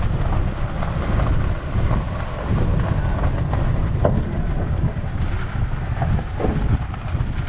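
Steady low road and engine rumble heard from inside a motorhome cruising at highway speed.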